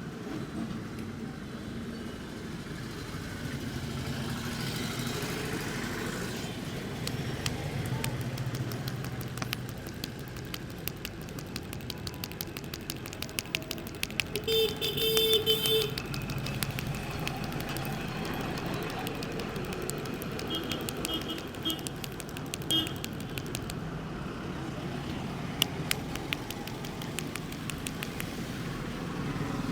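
Rapid, rhythmic tapping strokes of a head massage, many taps a second, over steady street traffic. A vehicle horn sounds for about a second and a half about halfway through.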